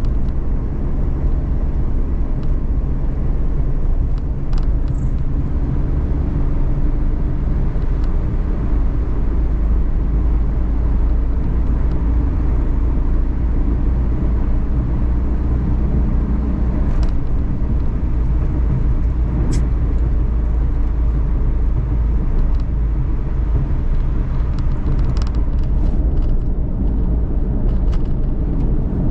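Suzuki Every kei van (DA17V, 5AGS automated manual gearbox) heard inside the cabin while driving: a steady low engine and road drone, with a few faint clicks.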